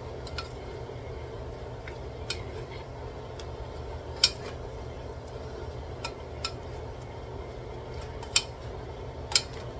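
Wooden spatula and turner knocking and scraping against a metal pot while tossing shredded cabbage: a scattering of sharp clacks, the loudest about four seconds in, over a steady low hum.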